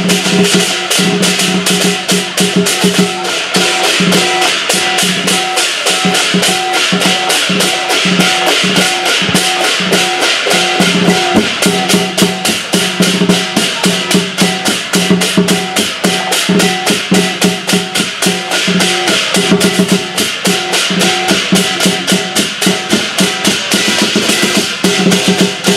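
Cantonese lion dance percussion band playing: a big drum, clashing cymbals and gong keeping a fast, steady beat.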